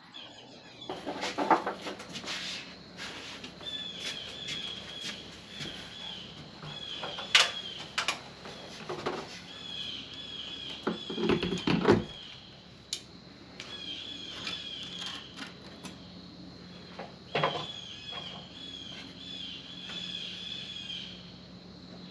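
Birds chirping in repeated short, warbling phrases, with scattered sharp clicks and knocks.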